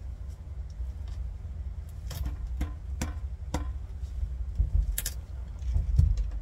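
Sharp metallic clicks and clinks from the LED streetlight fixture's housing being handled on its pole arm: four about half a second apart, a louder one a little later and a dull knock near the end, over a steady low rumble.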